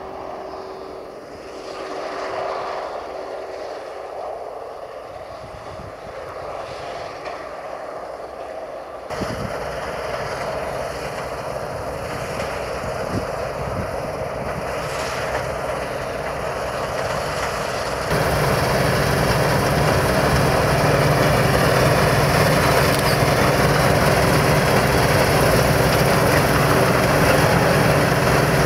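Claas Dominator 208 Mega combine harvester running while harvesting: a steady mechanical drone with a held hum. It gets abruptly louder twice, about a third of the way in and again past the middle.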